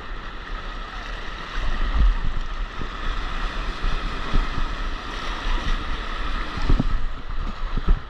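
Rushing, splashing whitewater around a stand-up paddleboard riding a broken wave into the shallows, with wind rumbling on the microphone. A few low thumps, the loudest near the end.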